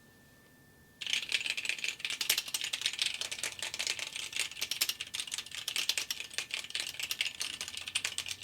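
Rapid, dense clatter of mechanical keyboard switches being pressed, like fast typing on Durock Blue switches; it starts abruptly about a second in and stops near the end.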